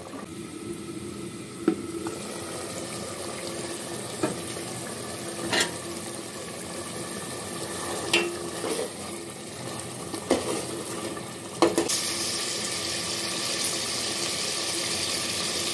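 Beef curry bubbling and sizzling in a metal pot while a spatula stirs it, knocking against the pot about six times. The sizzle grows louder near the end.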